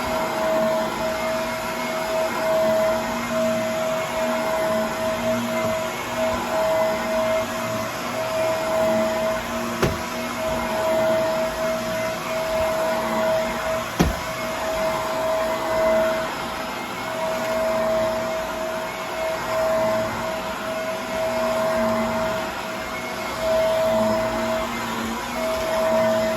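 Vacuum cleaner running steadily, its motor whine holding one pitch over a rush of air, with brief dips as it is pushed along. Two sharp clicks stand out, about ten and fourteen seconds in.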